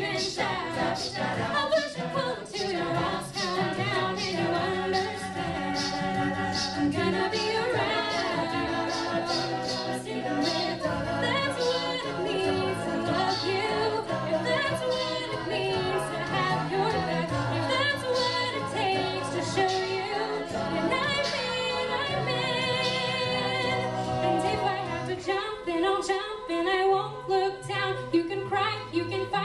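A cappella group of male and female voices singing in harmony through microphones, with a steady beat of sharp percussive strokes running under the chords.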